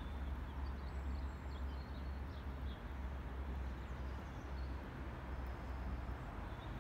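Evening lakeside ambience: a steady low rumble with faint, scattered high bird chirps.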